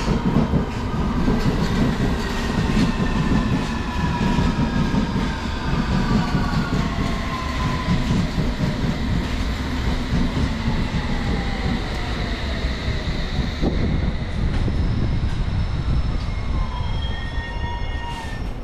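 London Underground S7 Stock District line train pulling into the platform and braking to a stop, its motor whine falling in pitch over a steady rumble of wheels on rails. Near the end come a few short beeps.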